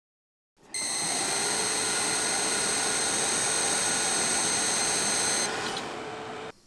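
xTool F2 Ultra laser engraver running a MOPA infrared fiber-laser engraving job on a stainless steel tag. A steady hiss with several high, steady whining tones starts just under a second in; the whine stops about five seconds in and the hiss cuts off suddenly a second later.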